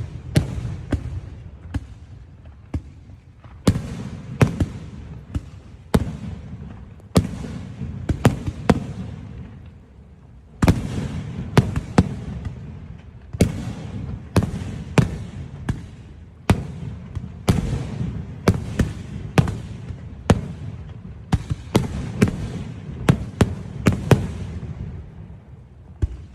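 Aerial fireworks show: a rapid series of sharp bangs as shells burst, each trailing off in crackle and echo, over a continuous low rumble.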